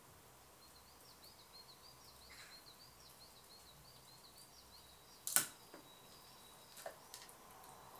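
Faint, rapid high twittering of a small bird for the first few seconds, then a single sharp knock about five seconds in and two lighter clicks a second and a half later, from a red squirrel feeding and moving about on the outside window sill.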